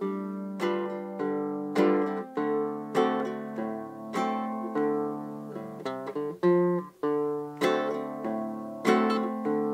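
Acoustic guitar music: fingerpicked chords and single notes at an unhurried pace, a new note every half second or so.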